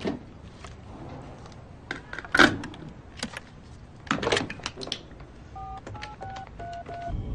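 Touch-tone desk telephone being dialled: five short dual-tone keypad beeps in quick succession near the end, after a few scattered clicks and knocks as the handset is picked up.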